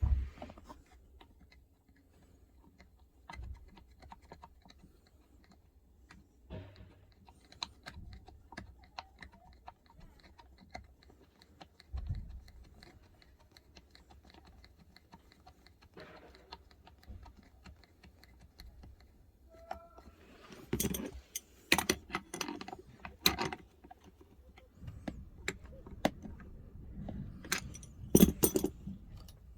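Small clicks, knocks and metallic jingling of hand tools and bolts being worked on a truck seat armrest, sparse at first and busier and louder in the last third.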